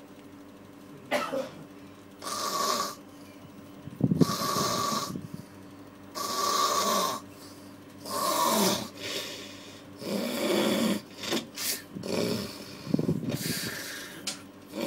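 Person snoring heavily, a rasping snore on each breath about every one and a half to two seconds after a quiet first second, breaking into shorter, choppier snorts in the second half.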